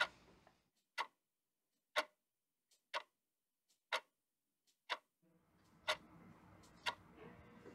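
Wall clock ticking, one sharp tick a second, with a fainter click just before some of the ticks. Between ticks there is dead silence for the first five seconds, then faint room tone comes back.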